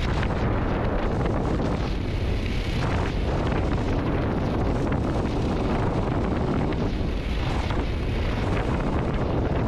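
Wind buffeting the microphone: a steady, loud rushing noise, heaviest in the low end.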